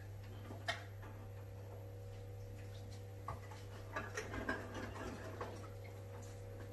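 Small clicks and knocks from a plastic bucket and jars being handled: one sharp click early, then a cluster of light knocks and rustles around the middle, over a steady low hum.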